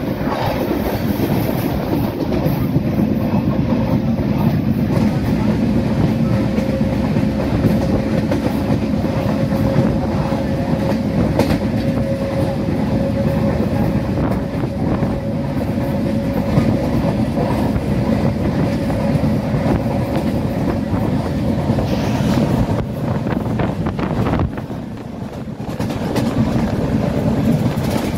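Moving passenger train heard from an open coach doorway: a steady rumble and clatter of wheels on the rails, with a faint steady whine through the middle. The sound dips quieter briefly near the end.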